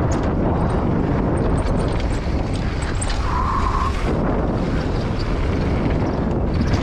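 Steady rush of wind on the camera microphone with mountain bike tyres rolling over a dirt trail, and small clicks and rattles from the bike. A short, steady high-pitched squeal sounds briefly about three seconds in.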